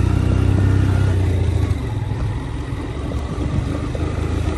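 Motorcycle engine heard from the rider's seat, running steadily and then easing off about a second and a half in, leaving a rougher, uneven rumble.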